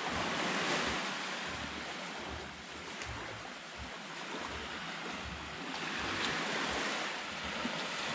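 Small waves washing on the beach, a steady hiss that swells and eases twice, with wind buffeting the microphone.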